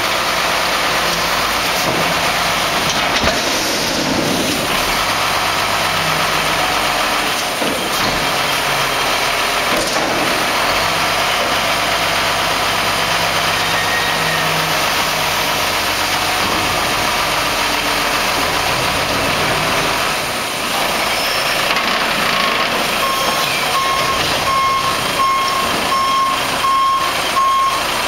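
1992 Mack MR front-load garbage truck's diesel engine running while the Pak-Mor lift arms empty a dumpster and lower it, with a few metal clanks in the first ten seconds. Late on, the truck's back-up alarm starts a steady string of beeps.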